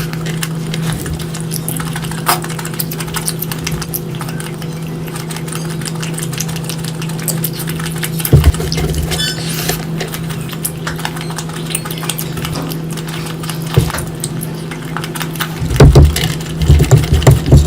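Close-miked eating: wet chewing and mouth clicks, over a steady low hum. A louder knock comes about halfway through, and a cluster of bumps near the end.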